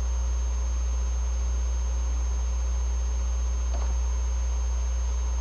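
Steady low electrical hum with a faint constant high-pitched whine above it, and a brief faint sound about four seconds in.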